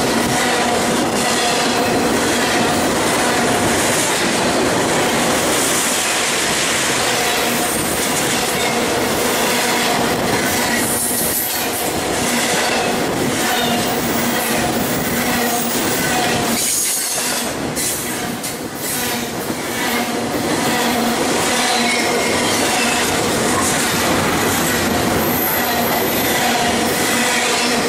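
BNSF double-stack container cars rolling past close by: a loud, steady rush of steel wheels on rail with clatter and a steady ringing squeal from the wheels. The sound dips briefly about eighteen seconds in.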